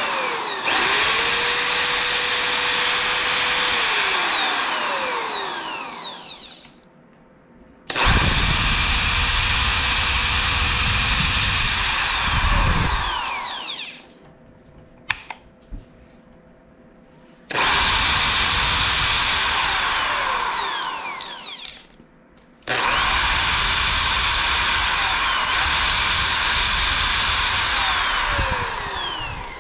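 Total TG107136 710 W corded impact drill running with no load, triggered four times. Each time the motor whine rises quickly to full speed, holds, then falls away as the chuck coasts down after the trigger is let go. In the last run the speed dips and recovers twice as the variable-speed trigger is eased. Two sharp clicks come in the pause around the middle.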